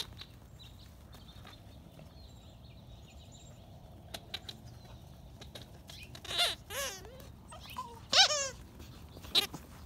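Nine-week-old puppies yipping and whining while they play, in several short, high, wavering cries in the second half; the loudest comes a little past the middle.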